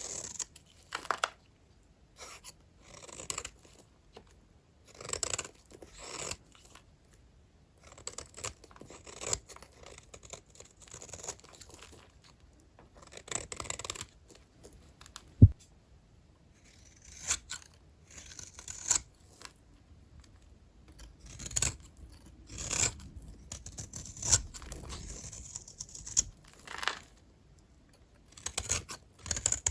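Small dry vintage hotel soap bars being cut, a crunchy scraping stroke every second or two. A single sharp click about fifteen seconds in is the loudest sound.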